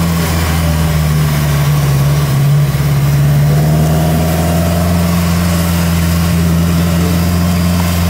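Subaru Impreza's turbocharged flat-four boxer engine running steadily with a deep, even rumble.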